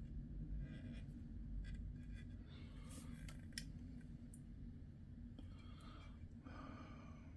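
Faint clicks and rubbing of small plastic model-car parts being handled and pressed together, as a side mirror is forced into a tight slot in the door.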